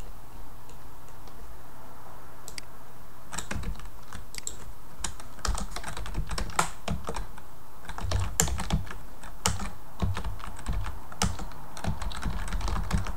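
Typing on a computer keyboard: irregular runs of keystroke clicks that begin about three seconds in and come thick and fast through the rest.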